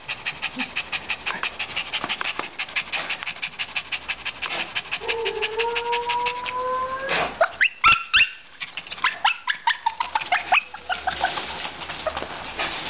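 Small Shih-Tzu panting fast and evenly, about six or seven breaths a second. About five seconds in, a drawn-out, slightly rising dog whine sounds over it, followed by a few sharp yips and short falling whimpers before the panting resumes.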